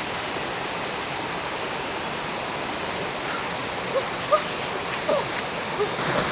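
Water rushing steadily over a small cascade into a rocky stream pool. From about four seconds in, a few brief chirps sound over it.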